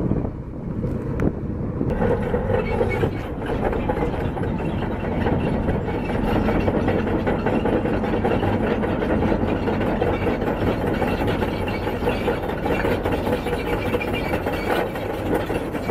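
Caterpillar D9N crawler bulldozer running its diesel engine, its steel tracks clanking and rattling. It gets louder about two seconds in and then holds steady.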